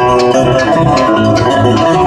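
Bluegrass band playing, with fast picked string notes.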